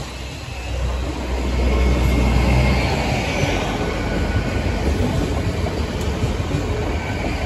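Train passing over the level crossing. A deep rumble is heaviest in the first few seconds, then the wheels run steadily over the rails with a faint high squeal.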